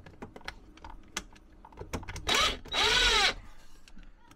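RIDGID cordless drill driving a screw into the cabinet wall: a few light clicks, then two short runs of the motor about two and three seconds in, its pitch rising and falling as the trigger is squeezed and let off.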